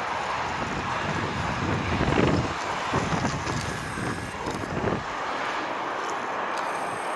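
Jet engines of a Boeing 777 airliner on final approach, a steady rushing roar, with wind buffeting the microphone in gusts that ease off about five seconds in.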